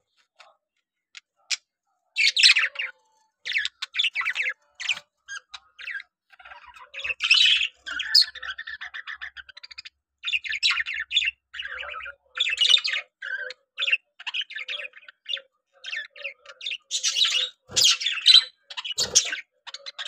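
A flock of budgerigars chattering with quick chirps and squawks, with a stretch of warbling about halfway through; the calls start after a couple of quiet seconds. Two sharp knocks come near the end.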